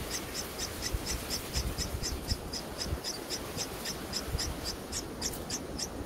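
Red-whiskered bulbul nestlings begging at the nest: a run of high, evenly spaced cheeps, about four to five a second, over a steady background hiss.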